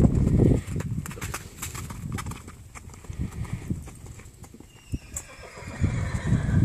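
A horse's hooves beating on the dirt of a round pen as it canters, with a whinny in the last second or so. A heavy low rumble covers the first half-second and returns near the end.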